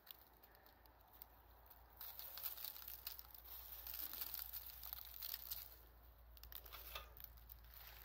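Faint dry crackling and scraping as old wooden beehive frames are lifted and handled, their brittle comb and debris crumbling and rubbing against the wood. It starts about two seconds in, eases off, and comes again near the end.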